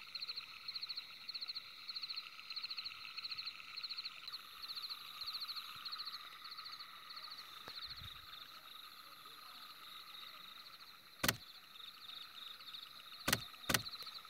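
Night-time forest ambience: a steady chorus of rhythmic, high-pitched chirping trills, repeating about twice a second and thinning out after a few seconds. Three sharp clicks cut through it, one a little past the middle and two close together near the end, and these are the loudest sounds.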